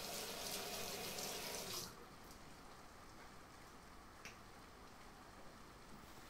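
Bathroom sink tap running water into the basin for about two seconds, then shut off. A faint click about four seconds in.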